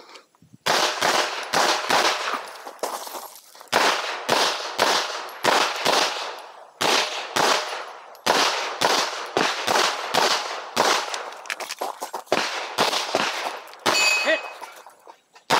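Glock 43X 9mm pistol fired close by in quick strings of shots, dozens in all, with brief pauses between strings.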